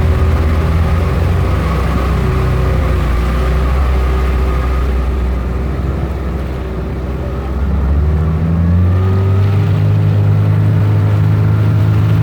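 Boat engine running with a steady low drone; a little past the middle it eases slightly, then about eight seconds in its note steps up higher and a bit louder and holds there.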